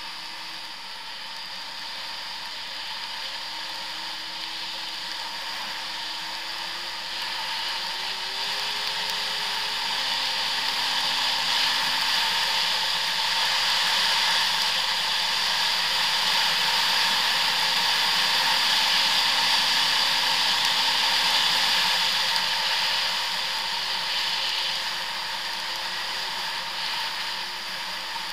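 Arctic Cat ZR 6000 El Tigre snowmobile under way across snow, its two-stroke engine and track running under a steady rushing of wind and machine noise. The noise grows louder over the first third, holds through the middle and eases off about three quarters of the way through.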